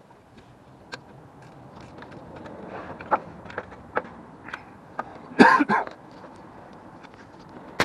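Hand tools working on the alternator's mounting bolts in an engine bay: scattered sharp clicks and metal knocks, with a louder, rough double burst about five and a half seconds in.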